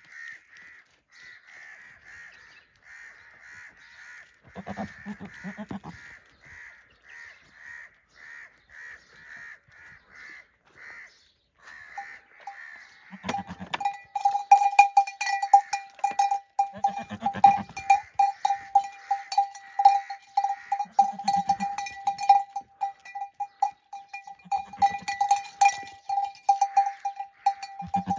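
Goats bleating now and then, with a bell clanking rapidly and without a break from about halfway through. A steady, regularly pulsing high call runs through the first half.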